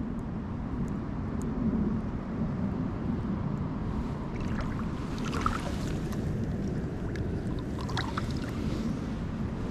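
Steady low rushing of river water around the wading anglers, with a couple of brief higher crackles about halfway through and again near the end.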